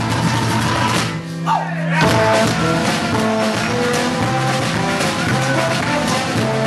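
Live band playing a song with guitars and drum kit. About a second in, the beat drops out briefly under held notes and a short sliding note, then the full band comes back in.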